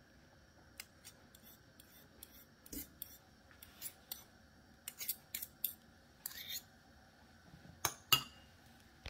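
A metal fork scraping ricotta cheese off a metal spoon: a scatter of short, light scrapes and clicks of metal on metal, with two louder clinks a little before the end.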